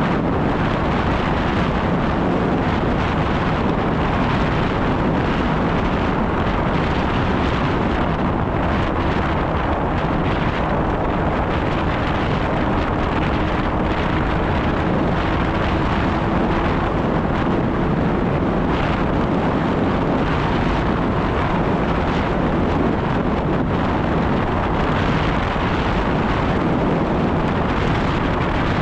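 Snowmobile engine running steadily under way, its note holding an even pitch, with heavy wind on the microphone.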